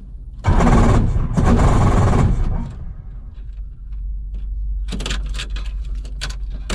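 Robinson R22's starter cranking the four-cylinder Lycoming engine for about two seconds without it catching: a failed start attempt, heard through the headset intercom.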